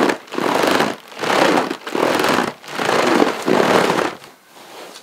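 Therm-a-Rest UberLite air mattress, thin 15-denier nylon, crinkling and rustling as a person shifts their weight on it, in about six rustles that stop about four seconds in. Friction against the foam roll mat beneath adds to the noise.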